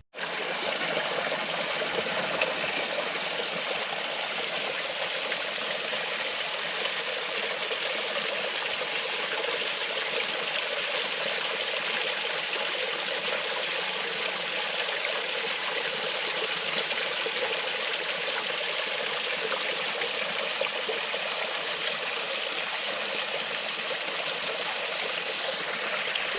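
Small woodland stream running and splashing over rocks and little waterfalls: a steady, even rush of water.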